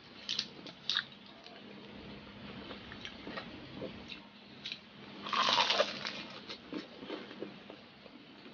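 Close-up eating sounds: crispy chicharon bulaklak (deep-fried pork intestine) being bitten and chewed, crunching and crackling. There are sharp crackles near the start, small crunches throughout, and the loudest burst of crunching about five and a half seconds in.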